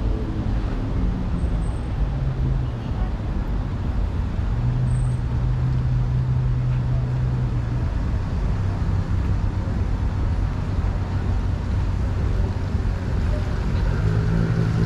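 A car driving on a wet road in the rain: a steady hiss of tyres and rain under a low engine hum that steps up and down in pitch a few times.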